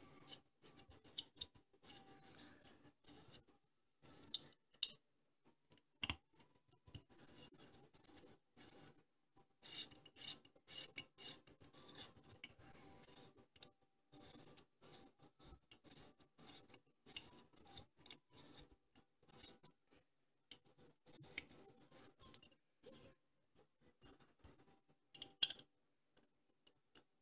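Allen key turning an AR-15 pistol grip screw down onto its toothed star washer: a run of small scratchy metal clicks and scrapes in uneven spurts with short pauses, and a sharper click near the end.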